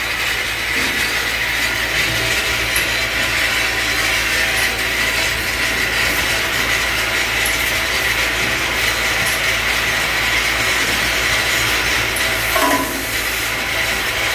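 Steady machinery noise of an automated pipe-fitting assembly line running: robot arms, conveyors and a parts feeder working together in a dense, even rattle and whir. A short, louder sound stands out near the end.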